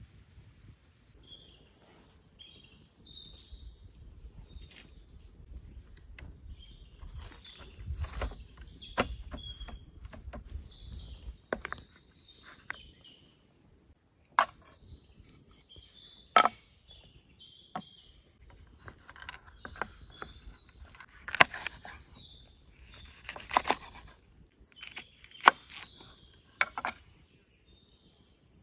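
Woodland ambience: a steady high insect buzz and scattered bird chirps, with irregular sharp knocks and clicks as a plate, knife, skewer and cutting board are handled on a table of wooden poles.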